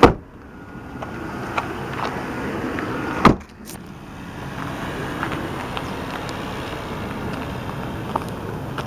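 Two loud thumps about three seconds apart over a steady background noise.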